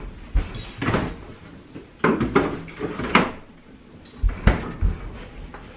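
Kitchen knocks and clatters of a door being opened and shut, with heavy thuds of footsteps on a hard floor a little past the middle.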